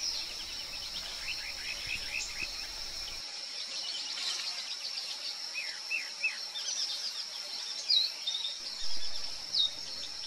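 Small birds giving short, high chirps, many of them falling in pitch and coming more often in the second half, over a steady high-pitched insect drone.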